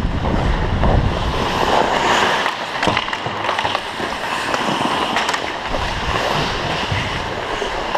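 Ice hockey skate blades carving and scraping across rink ice, heard up close from a player-worn camera, with a few sharp clacks. Wind rumbles on the microphone for about the first second.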